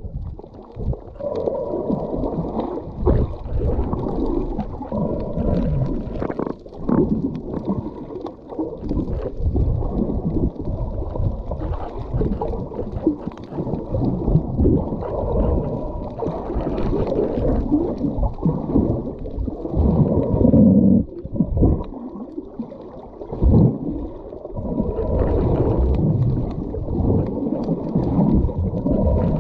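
Muffled underwater sound picked up by a camera held below the surface: an irregular low rumble and gurgling of moving water, surging louder and softer, with a few short knocks.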